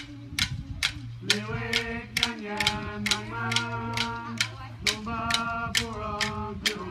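Aboriginal dance song: a chanting voice holding long steady notes over clapsticks struck at an even beat, about two and a half strikes a second, with a low steady drone underneath.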